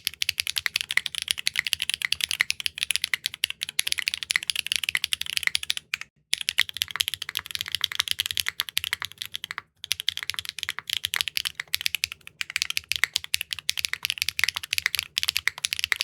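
Fast typing on a Neo65 Core Plus mechanical keyboard fitted with clacky linear switches: a dense, continuous run of sharp key clacks, broken by two brief pauses about six and ten seconds in.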